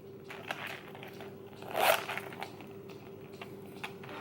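Rustling and crinkling of packaging and a small handbag being handled, with scattered small clicks and one louder crinkle about two seconds in, over a faint steady hum.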